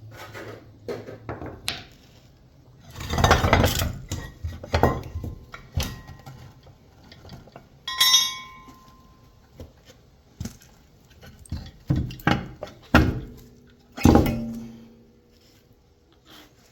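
Loose metal pieces from a dismantled electric motor clanking and clinking as they are handled and dropped, in irregular strikes. One piece rings clearly about eight seconds in, and a couple of heavier clanks with a short ring come near the end.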